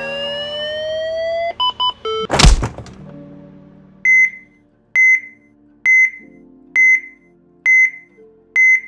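Outro logo sound effects: a rising sweep of tones, three quick blips and a whoosh ending in a thump about two and a half seconds in. Then a heart-monitor style beep repeats evenly, a little under once a second.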